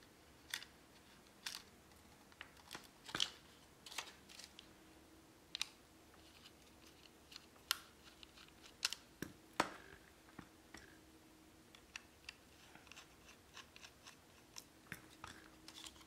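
Small, sharp metal clicks and taps at irregular intervals as a precision screwdriver works the screws out of a laptop hard drive's metal bracket and the bracket is handled. A faint steady hum lies underneath.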